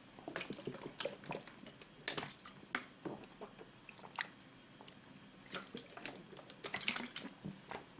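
Drinking from a large plastic bottle: quiet gulps and swallows, with scattered small clicks and mouth noises.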